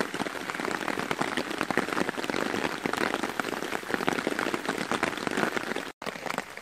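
Heavy rain falling on a DD Hammocks tarp, a dense, steady spatter of countless drops.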